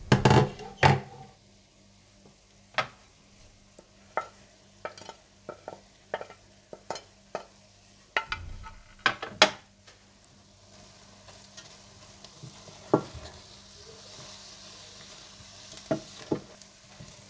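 Metal clanks from a stainless steel cooking pot in the first second, then scattered light taps and knocks. From about halfway a faint sizzle rises, and near the end a wooden spoon scrapes and knocks as it stirs minced meat in the pot over low heat.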